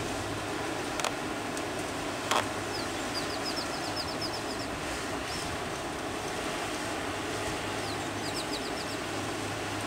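A bird's rapid trill of about ten short, falling chirps, heard twice, over a steady rushing background with a low hum. There are a couple of light clicks in the first few seconds.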